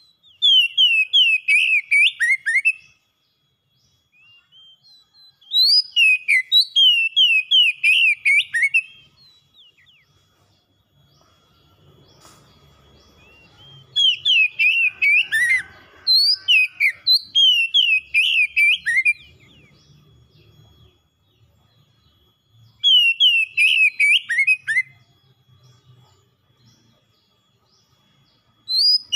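Oriental magpie-robin singing in repeated phrases of one to three seconds: fast runs of loud whistled notes that sweep downward, with thin high twittering above them, separated by short pauses.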